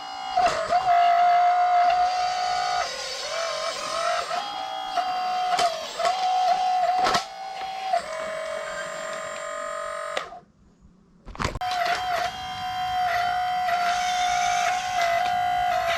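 Electric motors of a radio-controlled construction model whining steadily, with small shifts in pitch and light clicks. The whine cuts out for about a second just past the middle, then resumes.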